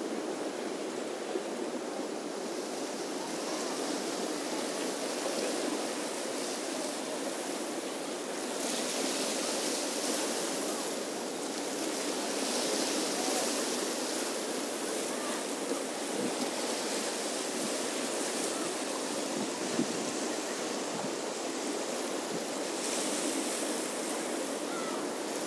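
Small sea waves washing against a rocky shore: a steady rushing wash that swells twice.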